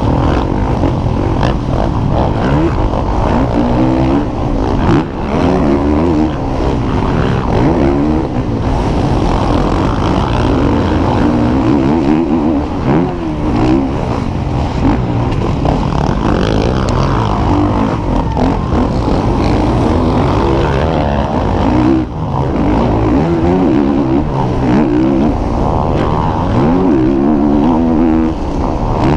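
Motocross dirt bike engine revving hard, its pitch rising again and again as the rider accelerates through the gears and dropping between, over a steady rush of wind and rumble from the rough track, heard from a helmet-mounted camera.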